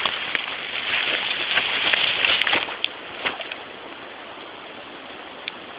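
Rain pattering on leaves: a hiss full of irregular ticks of falling drops. About three seconds in it eases to a softer, steadier hiss with only an occasional single drop.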